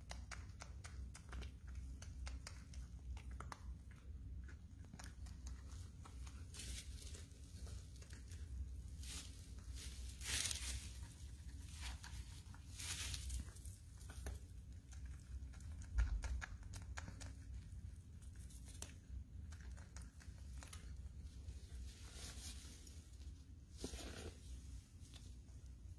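Woodchuck eating leafy greens: a run of faint crunching and soft tearing sounds with occasional rustles, over a low steady hum. There is a soft low thump about two-thirds of the way through.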